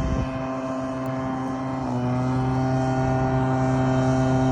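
Steady mechanical drone: a low hum with even overtones that dips slightly in pitch about two seconds in.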